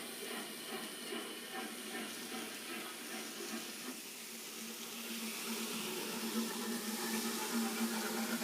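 Anime sound effect of a steam locomotive starting out: a steady rush of hissing steam, with a low hum growing louder in the second half.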